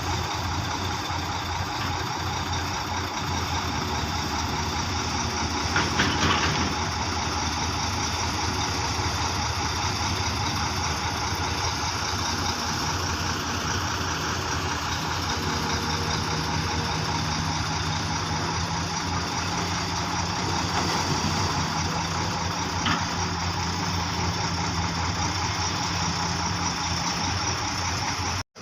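Diesel engine of an XCMG XE215 long-reach excavator running steadily while it digs, with a short knock about six seconds in and a fainter one later.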